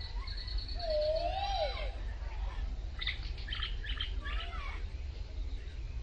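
Jungle babblers calling: a quick run of high ticking notes, then a low wavering whistle about a second in, then a burst of harsh chattering notes from about three to five seconds in.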